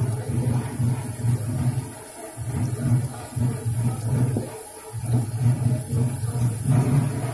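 Puris deep-frying in a large kadhai of hot oil, with a faint steady sizzle. Over it runs a louder low rumbling hum that drops out briefly every second or two.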